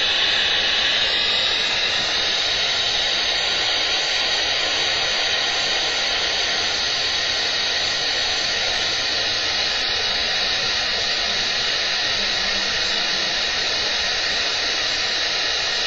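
Alarm of an RF/microwave detector sounding as a steady high-pitched hiss, set off by the radio-frequency field of a ferrite core resonating at about 1.1 MHz.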